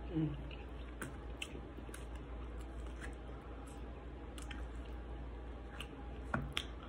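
A person chewing food with lips closed, soft wet mouth clicks scattered throughout, over a low steady hum. A short falling hum is heard from the eater just after the start and again briefly near the end.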